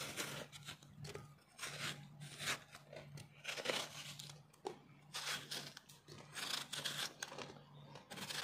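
Kitchen knife slicing a fresh pear held in the hand: a run of short, irregular crisp cutting strokes.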